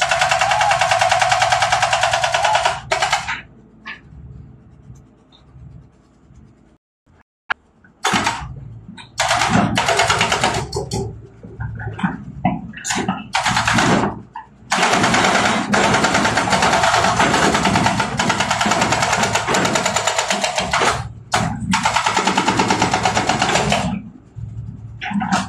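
Hydraulic rock breaker on a Hitachi excavator hammering rock in rapid, steady blows. It comes in bursts: one at the start, several short ones in the middle, and a long run of about nine seconds near the end. Between bursts the excavator's engine runs with a low rumble.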